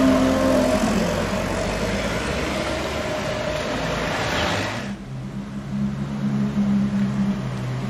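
Lamborghini Aventador V12 pulling away, its engine note dropping off in the first second and fading into road and traffic noise. About five seconds in, a sudden cut brings a LaFerrari's V12 running steadily at low revs as the car rolls out slowly, the pitch shifting near the end.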